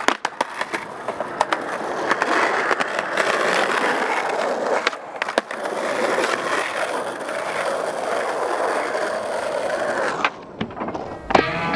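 Skateboard wheels rolling on rough asphalt with a steady grinding rumble, with sharp clacks of the board at the start. Near the end the rolling stops briefly while the board is in the air, then a couple of clacks as it lands, and music comes in right at the end.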